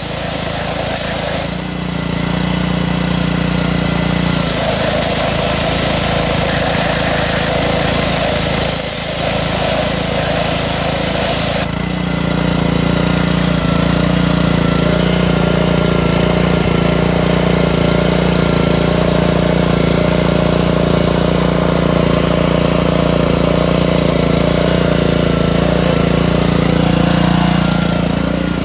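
Petrol-engine pressure washer running steadily, with the hiss of its water jet rinsing a car wheel; about twelve seconds in the spray stops suddenly and the engine keeps running on its own.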